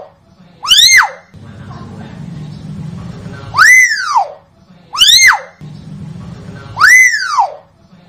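Common hill myna giving loud, ringing calls, four times at uneven gaps of one to three seconds; each call lasts about half a second and rises sharply in pitch, then falls away.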